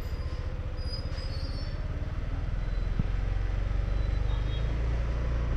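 Motorbike engine running with a steady low throb as it rides along a city street, growing a little louder about two seconds in.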